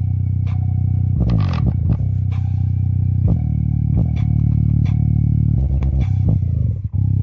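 An old loudspeaker playing a bass test track: deep, sustained bass tones with sharp clicks, cutting out for a moment near the end.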